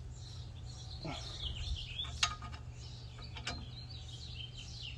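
Ratchet with a 17 mm socket tightening a brake caliper bracket bolt: a few sharp metal clicks about two and three and a half seconds in.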